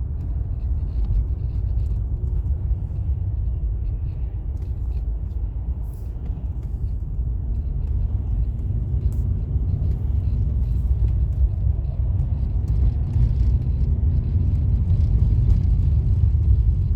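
Steady low rumble of a moving car's engine and tyres heard from inside the cabin, getting gradually louder over the second half.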